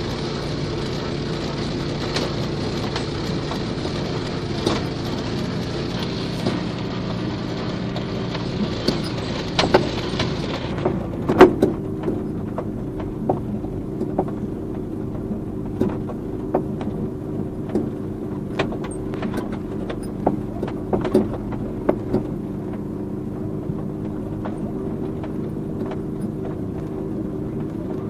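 A 6.5 hp single-cylinder walk-behind-tractor engine fitted in a VAZ 2109, running steadily. An even hiss over it cuts off about eleven seconds in, and from then on the engine runs on under scattered clicks and rattles.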